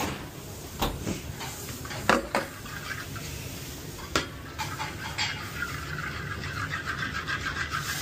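Clinks and knocks of crockery and utensils on a steel counter, then a metal spoon stirring and scraping round a pan of sauce in quick repeated strokes from about five seconds in.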